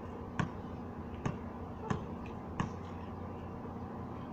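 Basketball being dribbled on a concrete court: four sharp bounces, two-thirds to nearly one second apart, stopping about two and a half seconds in.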